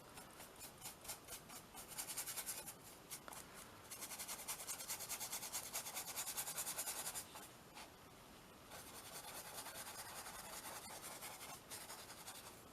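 Rapid back-and-forth scrubbing strokes of art materials on a small canvas, in spells of a few seconds with a short pause between them.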